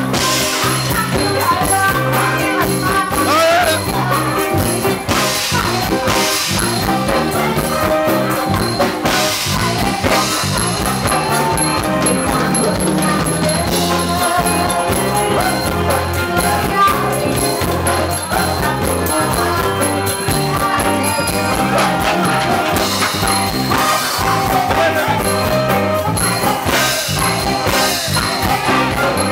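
A live band playing a ramwong-style song, amplified through the stage PA, with a man singing over it.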